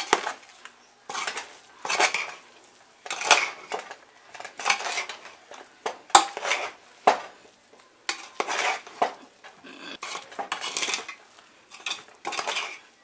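A slotted metal spoon scraping and clinking against a metal pot as cooked biryani rice is turned over and fluffed, in repeated strokes about one a second.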